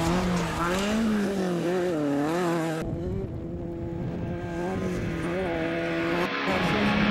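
Off-road race car engine revving hard, its pitch rising and falling again and again with throttle and gear changes. The sound changes abruptly about three seconds in and again near the end.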